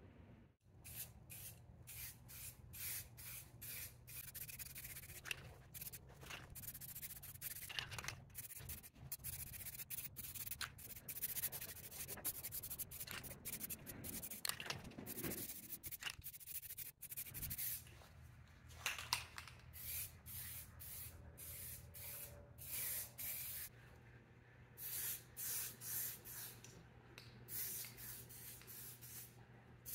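Aerosol can of chalk spray paint spraying in many short hissing bursts, with a few longer passes, over a low steady hum.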